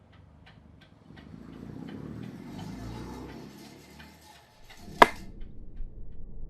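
Mechanical clock ticking about three times a second, joined by a low rolling rumble lasting a few seconds, then one sharp click about five seconds in.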